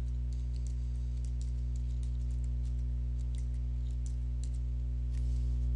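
Computer keyboard being typed on, a string of short, irregular key clicks as a web address is entered, over a steady low hum.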